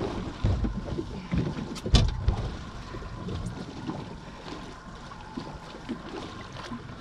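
Wind and water noise aboard a small fishing boat at sea, with scattered knocks and one loud knock about two seconds in.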